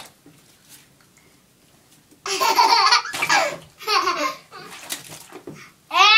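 A toddler laughing in several short bursts starting about two seconds in, then a louder, high-pitched laugh right at the end.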